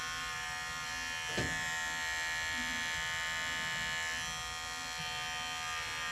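Cordless electric pet clipper running steadily as it trims the hair along a dog's lip line, with one short knock about a second and a half in.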